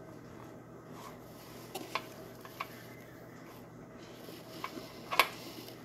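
A metal spoon scooping packed cornstarch powder, then cornstarch being eaten close to the microphone: a few soft crunches and clicks spread out, the sharpest about five seconds in.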